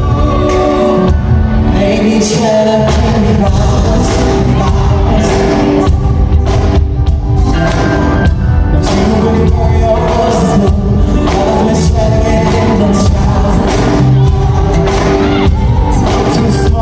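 Live concert sound recorded from the audience: a male singer singing into a microphone over a band, loud and continuous through the venue's PA.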